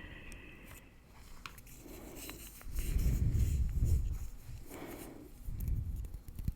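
Close-miked gum chewing: light mouth clicks and soft rubbing, with several muffled low thumps about three to four seconds in.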